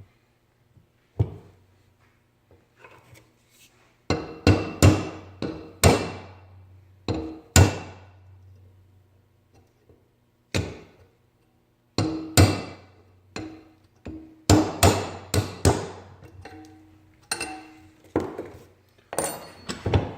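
Hammer and punch knocking a worn original bushing out of a Honda door hinge clamped in a vise: a run of irregular sharp metal blows, each ringing briefly, some in quick clusters with short pauses between.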